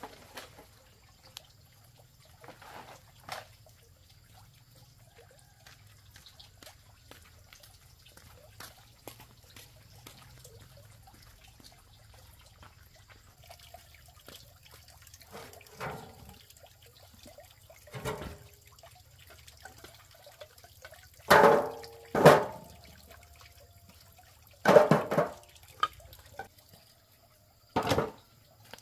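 Liquid splashing and dripping in scattered short bursts, the loudest two in quick succession about three-quarters of the way through.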